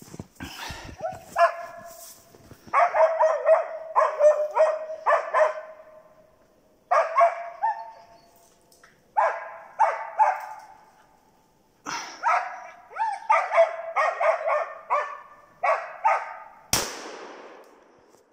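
Hunting dogs barking in quick runs at a marten up in the trees, holding it there for the hunter. Near the end comes a single loud gunshot that echoes through the forest.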